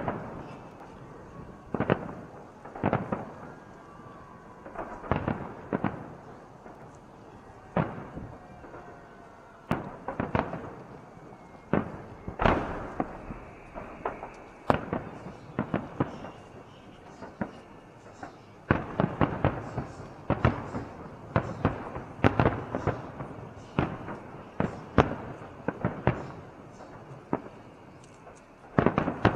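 Fireworks salute: aerial shells bursting in a string of sharp bangs at irregular intervals, some coming in quick clusters, each followed by a short echo.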